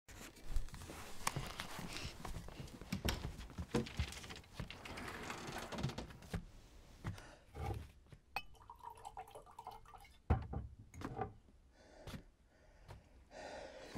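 Scattered soft knocks, thuds and clicks with light rustling in a small room, busier for the first six seconds or so and then sparser.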